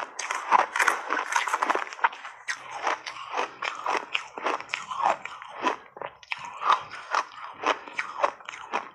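Shaved ice being chewed in big mouthfuls: a continuous run of crisp crunches with louder peaks about twice a second.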